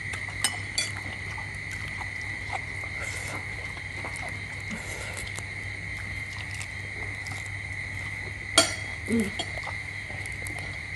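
Small scattered clicks and taps of balut eggshells being cracked and peeled and spoons knocking on shell, with one sharper click about three-quarters of the way through, over a steady high-pitched hum.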